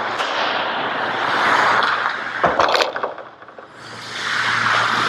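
Ice hockey skate blades scraping and carving across the ice close by, in two swelling hisses, with a couple of sharp clacks about two and a half seconds in.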